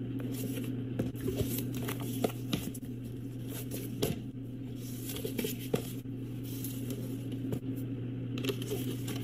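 Hardcover notebooks being picked up, set down and slid across a tabletop, giving scattered soft taps, clicks and scrapes over a steady low hum.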